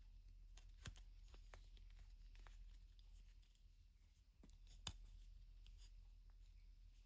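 Near silence over a low steady hum, with scattered faint clicks and ticks of small metal lathe accessories being handled. The sharpest clicks come about a second in and at about five seconds.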